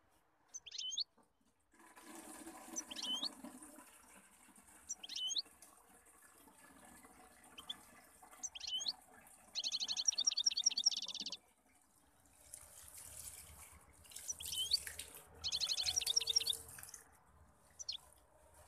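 Water running from a brass wall tap into a plastic watering can, a steady hiss that pauses briefly about two-thirds of the way through. Over it a small bird chirps repeatedly, with two fast trills that are the loudest sounds.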